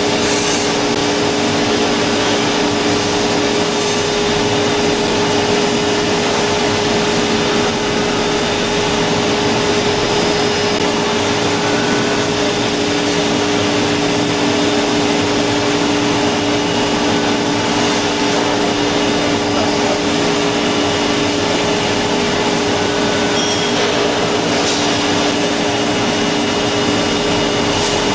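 StrojTOS MC80 five-axis milling machine cutting a cast workpiece: steady machining noise with a constant two-pitched hum from the running spindle.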